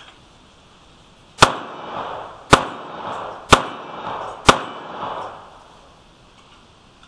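Smith & Wesson M&P22 pistol firing four .22 LR shots, about one a second, each sharp crack followed by a short echo under the shelter's roof.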